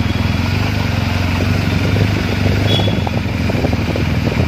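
BMW R1250 GS Adventure's boxer-twin engine running steadily at low speed, heard from the pillion seat with wind rushing over the microphone.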